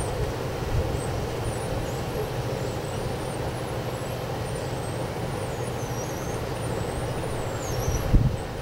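Strong wind buffeting the microphone, a steady low rumble with uneven gusts and a harder blast about eight seconds in.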